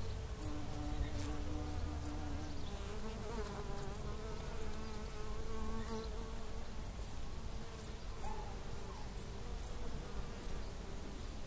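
Insects buzzing: a steady, slightly wavering drone, with faint high chirps repeating about twice a second.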